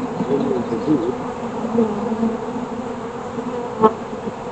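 Honeybees buzzing around an open hive: many overlapping, wavering hums. A single sharp click sounds near the end.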